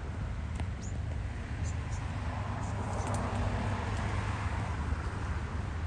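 Steady low rumble of diesel-electric freight locomotives, with a broader noise that swells about three seconds in and fades again, and a few faint high chirps.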